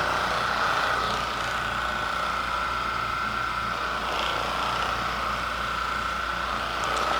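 Steady machine hum with a constant high whine, unchanging throughout.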